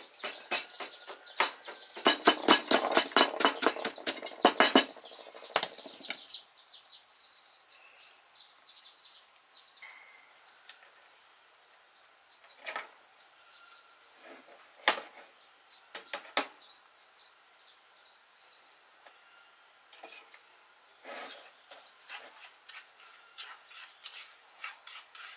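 Wooden pestle pounding in a small mortar: rapid repeated strokes, several a second, for about the first five seconds. Then only a few scattered light taps and clicks of kitchen utensils. Birds chirp faintly in the background.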